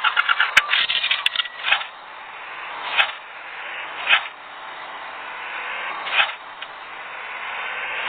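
Road traffic noise that slowly grows louder, with a quick run of short pulses in the first second and a few separate short, sharp bursts spaced a second or two apart.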